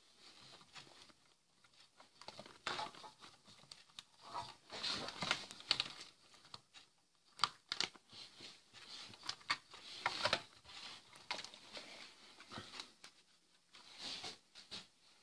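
Irregular rustling, crinkling and light clicks of handling: a car wiring harness with plastic connectors and instrument gauges being picked up and moved about, mixed with the rustle of a leather jacket.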